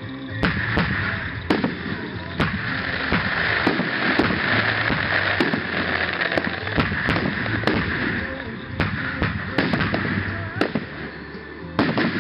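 Aerial firework shells bursting: about twenty sharp bangs at uneven intervals, with a continuous hiss between them.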